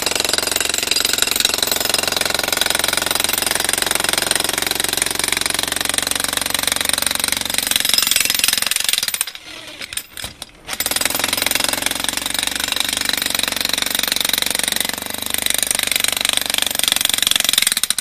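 Corded electric demolition hammer chiselling into a concrete driveway slab. It runs continuously, stops for about a second and a half around nine seconds in, then starts again and hammers on.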